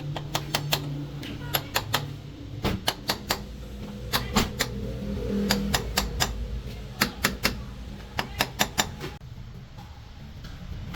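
Hard strikes of a hammer on metal, in short runs of three or four quick blows repeated every second or so, over a steady low hum.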